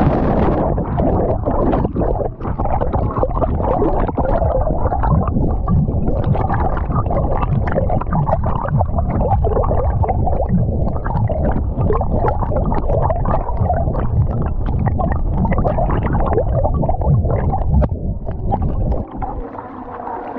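A dog hits the water of a pool with a splash, then swims underwater, heard through a camera strapped to him: muffled gurgling, bubbling and churning from his paddling. About nineteen seconds in, the sound quietens and thins as the camera comes up out of the water.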